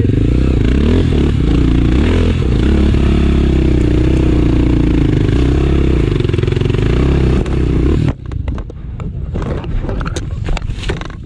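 Dirt-bike engine revving hard under load, its pitch rising and falling. About eight seconds in it stops abruptly, followed by irregular knocks and scraping.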